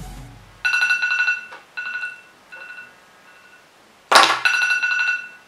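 Countdown timer alarm beeping in a repeating pattern of long and short electronic beeps, signalling that the five-minute time limit has run out. A sharp knock about four seconds in.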